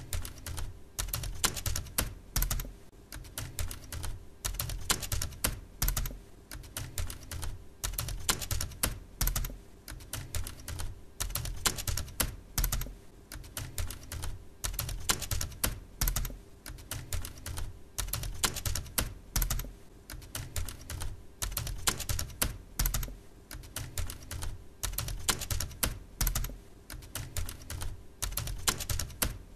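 Computer keyboard typing: a continuous, uneven stream of key clicks, several a second.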